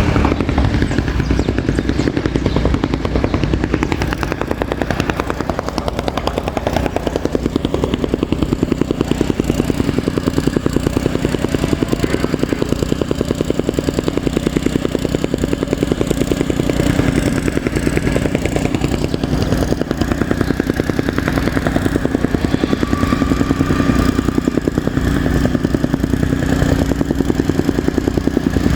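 Soil compactor's small engine running steadily at work, with a fast, even pulsing beat and a clattering rattle.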